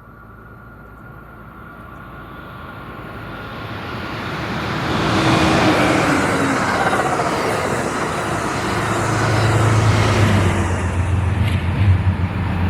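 Pacific Surfliner passenger train passing at speed: a rumble that builds over the first few seconds as the leading diesel locomotive nears and goes by with a falling engine note, then steady wheel-on-rail noise from the coaches, and a low steady drone from the trailing GE Dash 8 diesel locomotive in the last few seconds, with a few sharp clicks near the end.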